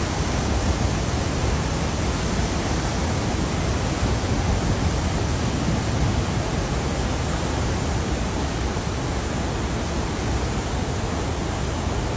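Steady, even rushing of Murchison Falls, where the Victoria Nile pours through a narrow rock gorge, with a heavy low rumble underneath.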